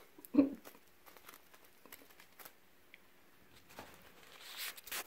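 Faint scattered clicks and rustles of a southern flying squirrel moving on a plastic-wrapped bird seed bell, growing near the end into a louder crinkling of the plastic wrap. A short vocal sound comes about half a second in.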